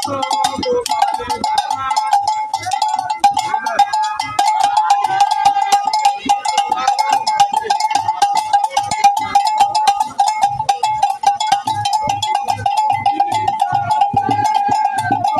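Hand-held iron bells beaten rapidly with sticks, a continuous clanging ring, over regular low thuds, with a crowd of voices chanting.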